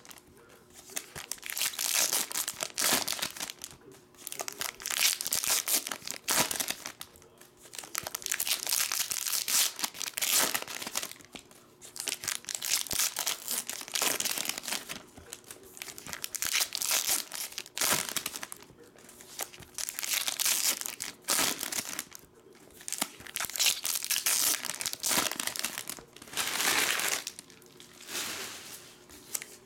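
Foil wrappers of Topps trading-card packs crinkling and tearing as pack after pack is ripped open by hand, in repeated bursts with short pauses between.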